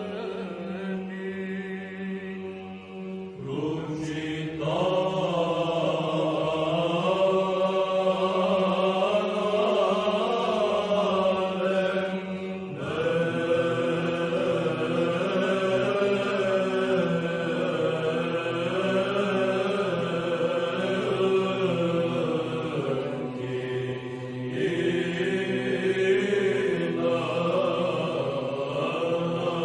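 Orthodox liturgical chant in Byzantine style: voices sing a slow, moving melody over a steady held drone note, with new phrases starting about three seconds in and again about thirteen seconds in.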